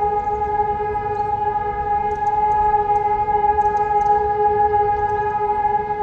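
Electronic civil-defence sirens of the Hörmann and Helin type sounding a steady, unwavering tone: the all-clear (Entwarnung) signal of the German warning system.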